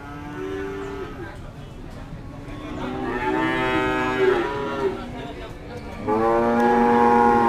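Cattle mooing. There is a short low moo near the start, then two long moos; the last is the loudest and lasts about two seconds.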